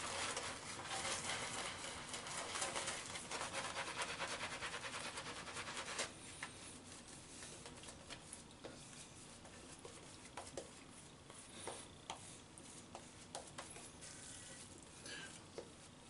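Shaving brush working lather onto a stubbled face: a dense, bristly scrubbing for about the first six seconds, then lighter brushing with scattered soft ticks.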